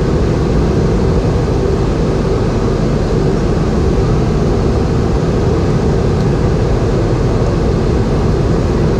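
Steady cabin noise inside a Boeing 717 in flight: rushing airflow and the drone of its rear-mounted Rolls-Royce BR715 turbofan engines, even and unbroken, with a faint steady hum.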